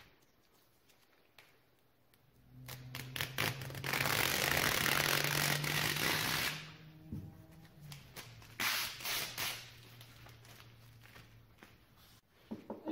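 Clear plastic forming sheet crinkling and crackling as it is peeled off a freshly set fiberglass-and-resin repair on a boat hull. It starts about two and a half seconds in, is loudest for a couple of seconds, and gives a second shorter run of crackles a few seconds later.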